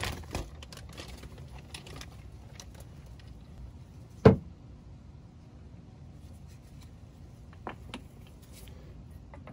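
Tools and parts being handled under a car: a single sharp knock about four seconds in, then a faint click about eight seconds in.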